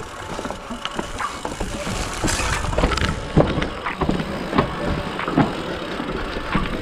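Mountain bike rolling down a dirt singletrack trail: a steady rumble of tyres on dirt with irregular knocks and rattles as the bike goes over roots and rocks.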